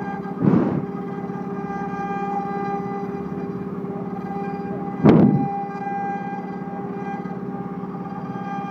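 AccTek CNC6090 small CNC router carving a relief into wood, its machine whine steady and tonal. Two brief, louder noisy swells come about half a second in and about five seconds in.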